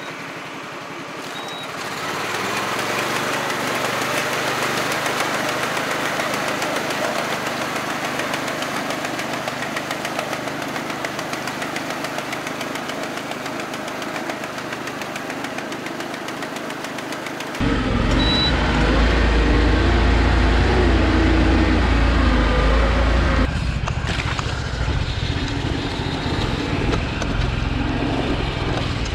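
Iseki PZ73 seven-row riding rice transplanter running steadily while planting seedlings in a flooded paddy. After about 18 seconds it becomes much louder, with a strong low rumble and the clatter of the planting arms heard up close.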